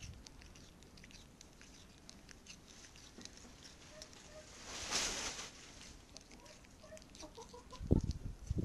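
A cat chewing on a chicken bone: quick, small wet clicks and crunches from its mouth and tongue. There is a brief hissy rustle about five seconds in, and a couple of low thumps near the end.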